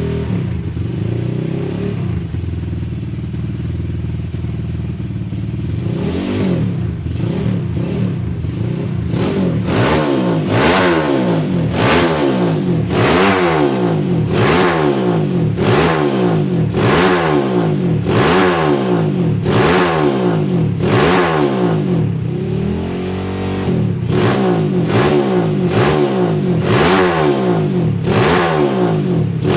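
Suzuki Satria FU motorcycle's single-cylinder four-stroke engine idling, then revved in quick repeated throttle blips, about one a second, dropping back to idle briefly before the blips resume.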